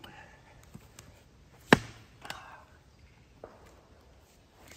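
Heavy chops of a Fiskars splitting tool's head into a large round of ash, one sharp strike about two seconds in and another at the very end.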